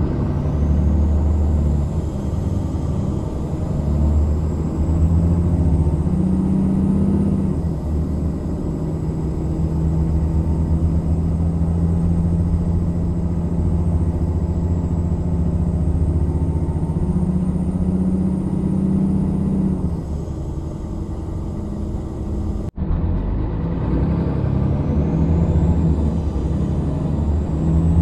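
Mercedes-Benz Citaro city bus's diesel engine heard from inside the bus, a loud low drone that rises and falls in pitch as it runs. A faint high whine climbs in pitch near the start and again near the end, and the sound cuts out for an instant about three-quarters of the way through.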